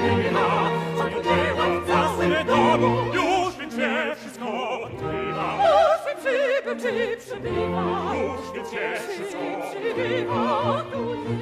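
Operatic singing with strong vibrato, sopranos among the voices, over a symphony orchestra.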